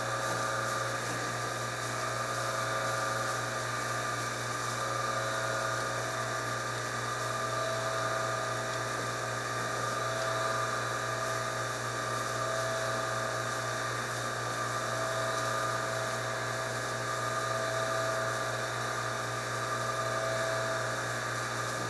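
Steady hum and whine of an electric motor running without a break, with no change in pitch or level.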